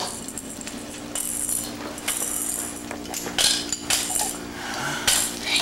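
Plastic baby toys on a bouncer seat's toy bar rattling and clinking in several short bursts as the baby grabs and shakes them, over a faint steady low hum.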